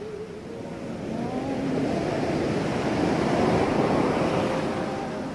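Surf washing onto a beach, the rush swelling to its loudest a little past halfway and then easing off, with a few faint wavering tones over it.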